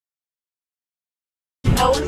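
Dead digital silence, then music cuts in abruptly near the end, with a strong bass.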